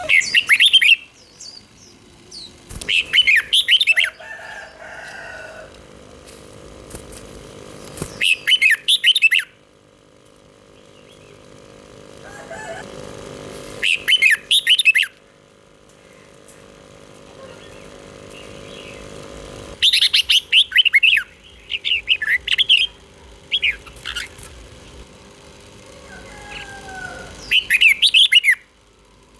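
Red-whiskered bulbul singing in short, bright, warbled phrases of about a second each, repeated every few seconds, over a faint steady hum.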